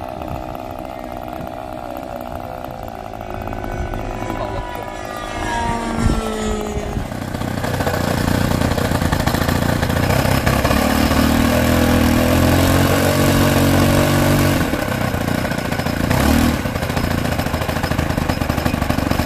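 A whine rising in pitch in the first seconds, then the engine of a large radio-controlled Spitfire scale model running loud and steady as it is held down on the ground with its propeller spinning. The engine's note changes about three-quarters of the way through.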